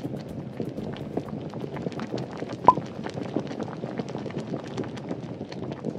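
Bubbling, crackling lava sound effect: a steady patter of small pops and crackles, with one louder bubble pop a little under three seconds in.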